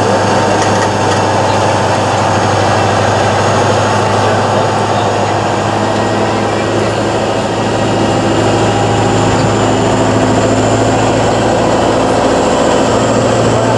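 Tatra 813 8x8 truck's diesel engine running steadily as the truck crawls over rough, steep ground, with a deep hum that grows louder near the end.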